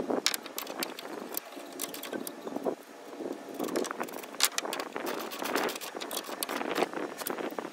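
Irregular clicks and clinks of metal hardware handled by hand at a solar panel's mounting bracket.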